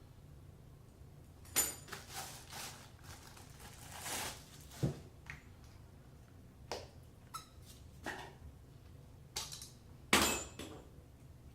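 Faucet parts and packaging being handled: scattered clicks, knocks and clinks with short rustles between, the loudest knock near the end.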